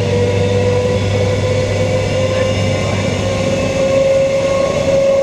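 Queensland Rail EMU electric train heard from inside the car while running: a steady rumble of wheels and running gear under a motor whine that rises slowly in pitch as the train gathers speed.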